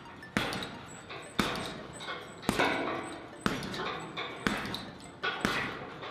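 Left jabs from boxing gloves striking a heavy punching bag: six sharp thuds about a second apart, each fading over most of a second.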